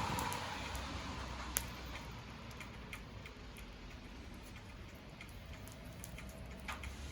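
Wood bonfire crackling: scattered small clicks and pops over a soft steady hiss, with a sharper pop about a second and a half in and another near the end.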